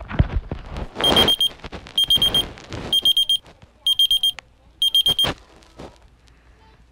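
Electronic alarm clock beeping: five rounds of quick high-pitched beeps, about four beeps to a round and one round a second, stopping about five seconds in. A rustling noise sits under the first rounds.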